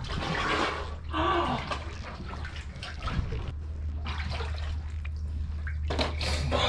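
Seawater sloshing and splashing around a man wading chest-deep, ducking under and surfacing while picking green mussels off the raft floats, in several separate splashes with the loudest as he comes up near the end. A steady low hum runs underneath.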